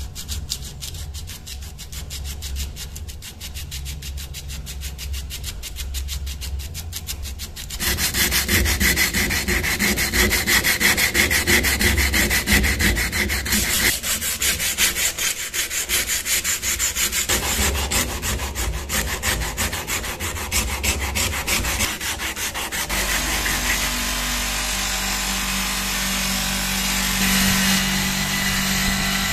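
Rapid back-and-forth scrubbing of a sanding sponge along a steel knife blade, growing louder about eight seconds in. Near the end a motor-driven grinding wheel comes on and runs with a steady hum as the blade is held against it.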